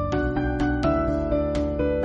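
Instrumental background music of plucked-string notes, a new note about every half second.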